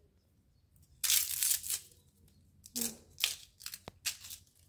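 Fresh bamboo shoot sheaths being split with a knife and torn off by hand: a long papery tear about a second in, then a few shorter rips and a sharp click near the end.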